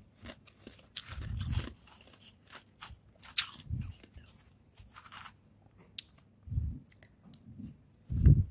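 Close-up crunching and chewing of powdery freezer frost, in irregular crisp crackles with a few deeper bites, alongside a metal spoon scooping frost from a plate.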